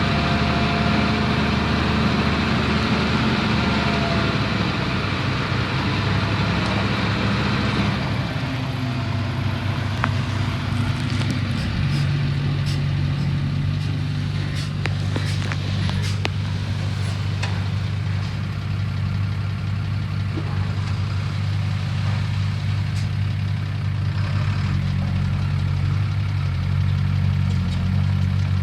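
Diesel engine of heavy earthmoving machinery running steadily, its note changing about eight seconds and again about twelve seconds in. Scattered sharp knocks and clanks sound over it through the middle.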